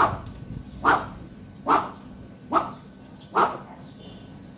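A dog barking, five barks a little under a second apart, stopping about three and a half seconds in.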